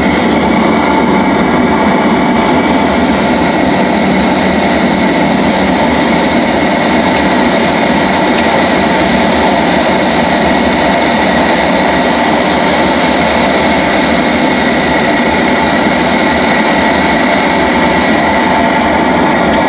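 Steady, loud engine noise and rushing air inside the cabin of a small high-wing plane in flight.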